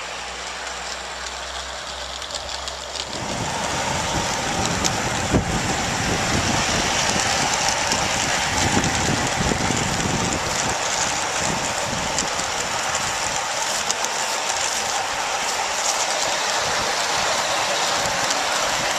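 A 16mm-scale double Fairlie model locomotive and its coaches running on 32mm-gauge garden railway track. It is a steady rushing clatter of wheels on rail, and it grows louder about three seconds in as the train comes close by.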